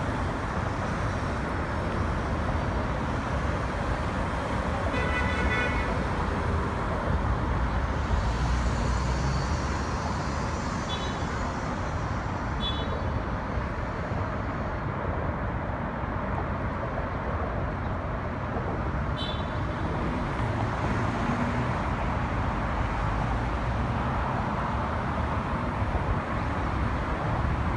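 Steady traffic noise from cars and the FDR Drive expressway, a continuous rumble of engines and tyres. A short high-pitched tone like a horn toot sounds about five seconds in, and a few brief high chirps follow later.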